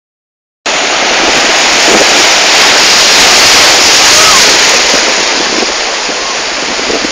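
Sea surf washing and breaking over shoreline rocks: a loud, steady rush of waves that starts abruptly just under a second in.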